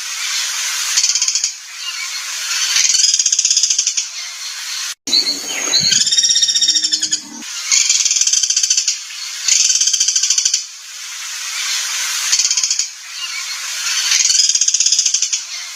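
Recorded harsh, buzzy songbird calls, played as a loop of 'rough material' for training caged birds. Rasping phrases of a second or two repeat with short gaps. An abrupt splice about five seconds in brings a different call with clearer, partly lower tones for a couple of seconds before the rasping phrases resume.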